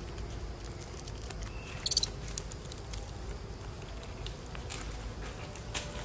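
Forest ambience with a low steady rumble. About two seconds in comes one short high-pitched chirp, and toward the end scattered light clicks and scrapes of a macaque climbing on tree bark.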